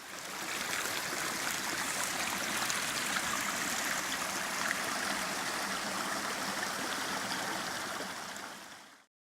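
Flowing stream water, a steady rushing that fades in at the start and fades out shortly before the end.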